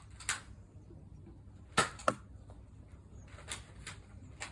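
X-Shot foam-dart blaster shot: a sharp pop about two seconds in with a second click right after, and lighter clicks and knocks from the blaster before and after. Wind rumbles on the microphone underneath.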